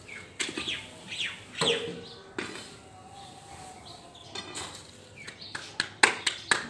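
Birds chirping with a few short falling calls, then, about a second before the end, a quick steady run of slaps as a ball of dough is patted flat between the palms to shape a paratha.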